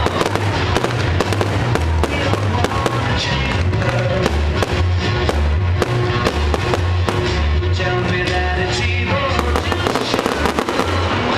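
Fireworks going off in rapid, continuous bangs and crackles, over loud music with a pulsing bass beat.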